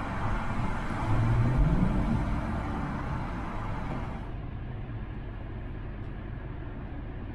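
Car engine and road noise heard from inside a moving car, the engine note rising as it accelerates about a second in.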